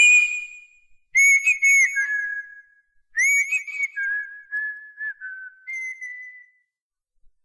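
High whistled melody: groups of quick chirping notes, each flicking up and falling back, alternating with longer held notes that step down a little in pitch. It stops about six and a half seconds in.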